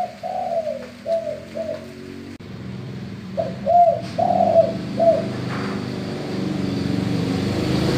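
Male spotted dove (tekukur) cooing in the deep 'gembur' style of its full song: two short phrases of coos, the second starting about three and a half seconds in. A steady low hum runs underneath and grows louder near the end.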